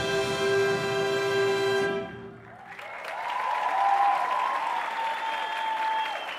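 A wind orchestra of brass and woodwinds holds its final chord, which cuts off about two seconds in. The audience then breaks into applause and cheering.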